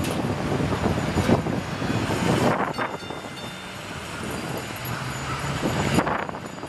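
PCC streetcar rolling past on the rails, with a run of clunks and clicks from the wheels and track. About three seconds in it drops away as the car moves off, leaving a lower steady street hum, with one more sharp knock near the end.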